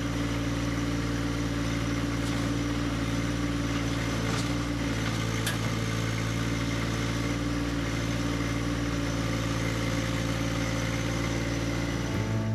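John Deere 1025R compact tractor's three-cylinder diesel engine running steadily while the front-loader grapple lifts a load, with a few faint clicks.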